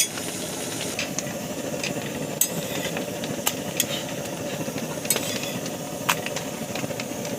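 Paratha frying in a little oil on a tawa: a steady sizzle broken by about seven sharp utensil taps against the pan, roughly one a second.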